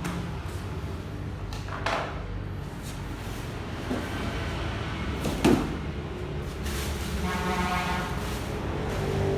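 Handling noises as the welding machine's accessories are unpacked: a few knocks, the loudest about halfway through, and a short scraping squeak near the end, over a steady low hum.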